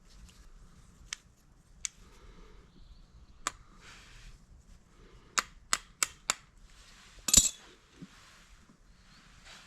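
A series of sharp metallic clicks and knocks from hand tools and parts being handled during work on the plate compactor: single clicks, then four quick ones, and a louder clank with a short ring near the end. The engine is not running.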